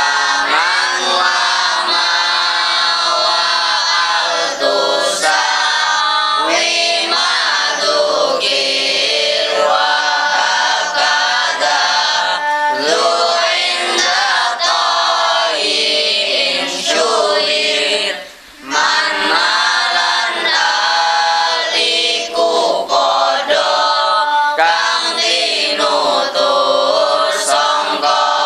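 A group of boys singing verses together in unison in a steady, continuous chant, with one short breath pause a little past the middle.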